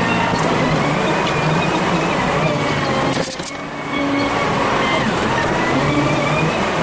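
Volvo BM 4300 wheel loader's diesel engine working under load, sped up fivefold, its pitch rising and falling as the loader pushes and lifts dirt. The sound dips briefly about halfway through.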